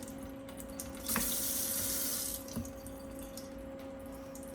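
Filtered-water sink tap turned on with a click about a second in, running for just over a second, then shut off. A steady low hum sounds throughout.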